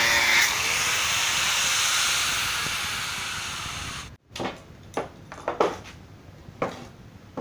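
Angle grinder running, then switched off and winding down, its hiss fading over about four seconds. After a sudden break come a few short knocks and clatter.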